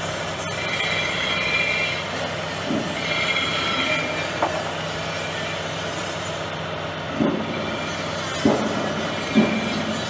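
Machine tool cutting the metal hub of a motorcycle wheel rim: a steady machine hum with the cutter squealing in high, wavering tones for a second or two at a time in the first half, and a few short dull knocks near the end.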